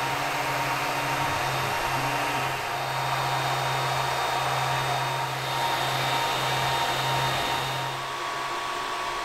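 Creality Ender 3-series 3D printer running: its cooling fans whir steadily while the stepper motors hum in short tones that change and break off as the print head moves. The motor hum drops away near the end, leaving the fans.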